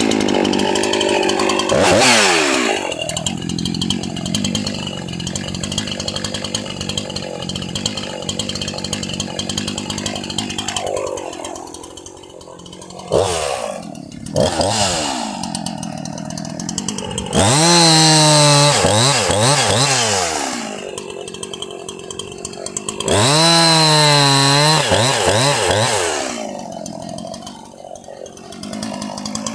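Jonsered 2153 50 cc two-stroke chainsaw idling with a few quick blips of the throttle, then two full-throttle runs of about three seconds each, its pitch wavering as it cuts into wood.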